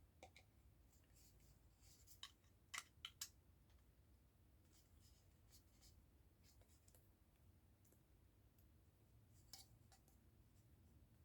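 Near silence with a few faint plastic clicks from handling and posing articulated Mega Construx building-block dragon figures, the loudest a quick run of three clicks about three seconds in and one more near the end.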